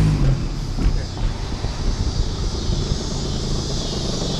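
Road noise from a moving car with the window open: wind rumbling on the microphone and a steady tyre hiss. An engine hum drops away just after the start.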